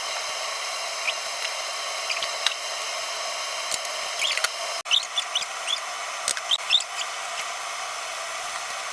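Chicken and vegetables sizzling in a pan with a steady hiss, with short high squeaks and ticks, more of them in the second half, as the food is stirred.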